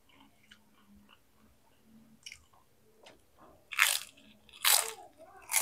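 Close-up crunching as fried tempeh is bitten and chewed. Soft mouth clicks come first, then three loud crunches in the second half, about a second apart.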